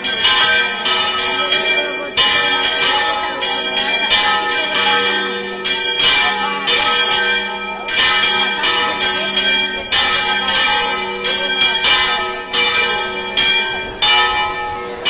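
Church bells pealing, struck about twice a second with several pitches ringing over one another, rung for the Virgin's image leaving the church in procession.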